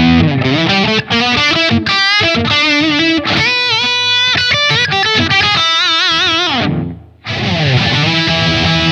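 SQOE SEST960 HSS electric guitar played through distortion: a lead line with slides and wide vibrato on held notes. It breaks off briefly about seven seconds in, then comes back as full distorted chords.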